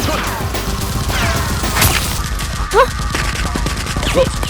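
Background action music with dubbed gunfire and impact sound effects: sharp cracks and hits over a steady pulsing bed, with short whooshing glides in pitch.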